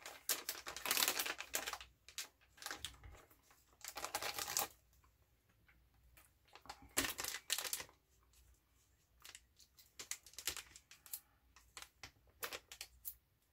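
Resealable plastic candy pouch crinkling and rustling in irregular bursts with small clicks as it is handled and pulled at to get it open.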